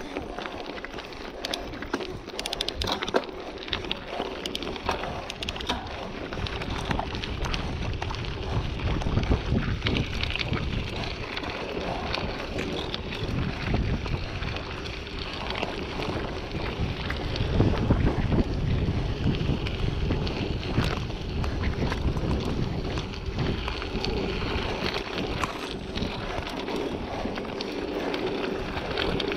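Mountain bike ridden along a rough dirt trail: wind buffeting the microphone, with tyre noise and a constant scatter of knocks and rattles from the bike over bumps. The wind rumble grows heavier in two stretches, about a third of the way in and again past the middle.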